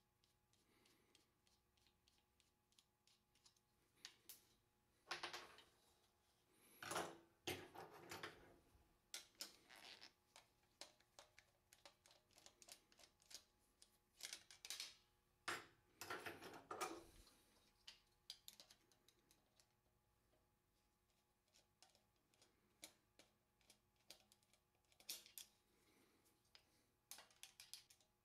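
Quiet, irregular metal clicks and scrapes of a screwdriver and a nut driver on the steel head of a Columbia automatic drywall taper as the cutter-wheel screws and lock nut are undone, with a few longer bursts of scraping and rattling.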